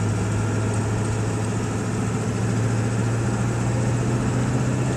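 Ford 7.3-liter Power Stroke turbo-diesel V8 running steadily with a constant low drone as the truck is driven, burning diesel with natural gas fed in by a CNG dual-fuel conversion.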